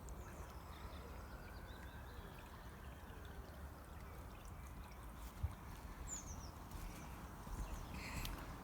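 Faint, steady trickle of a small stream, a tributary of the River Clyde, with a short high bird chirp about six seconds in.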